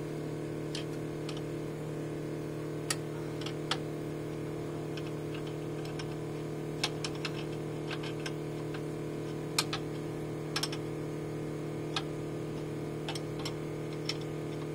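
Scattered sharp metallic clicks and taps of a hand tool on the diesel injector line fittings, a dozen or so at irregular intervals, over a steady low hum.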